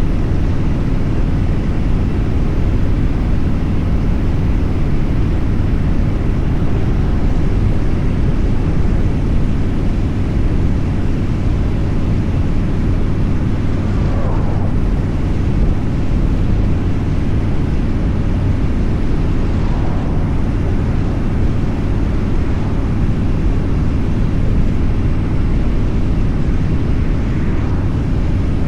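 Steady rush of wind and a low engine drone from a vehicle travelling at highway speed.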